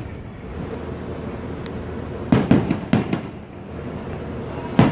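Fireworks going off: a quick cluster of about five bangs a little over two seconds in, then a single bang near the end, over a steady outdoor hum.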